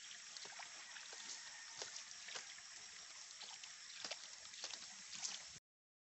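Faint outdoor background noise, an even hiss with scattered light clicks and rustles. It cuts off to silence abruptly shortly before the end.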